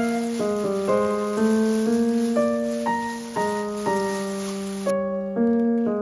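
Background piano music: a gentle melody of single notes, about two a second.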